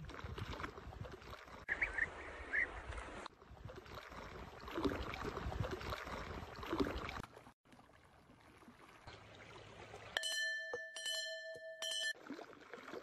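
Running floodwater over sand, heard as a steady rushing hiss that changes abruptly at several cuts between clips. About ten seconds in, a ringing tone of several pitches sounds for about two seconds, broken a few times.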